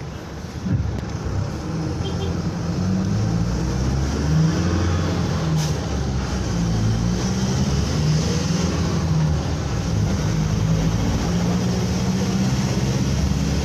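Engine of a moving road vehicle running as it drives, its pitch shifting up and down over a steady road noise. A single sharp click about five and a half seconds in.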